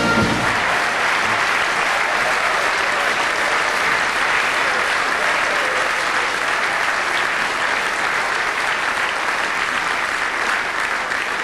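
Large audience applauding steadily, easing off a little near the end.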